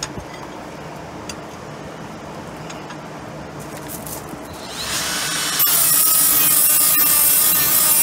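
Cordless DeWalt right-angle grinder with a small abrasive wheel spinning up about halfway through, then grinding a mild-steel workpiece held in a vise. The grinding is loud, a hiss with wavering high tones.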